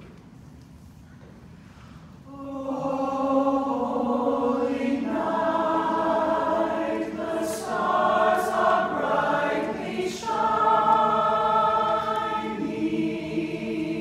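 Mixed choir of men's and women's voices singing a cappella in held chords, coming in after about two seconds of quiet room sound. The phrases change every second or two, with a few crisp 's' sounds in the middle.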